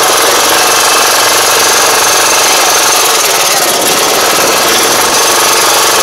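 2021 Iseki five-row rice transplanter at work in a flooded paddy, heard close up from under the machine: a loud, steady, fast mechanical rattle of its engine and planting mechanism.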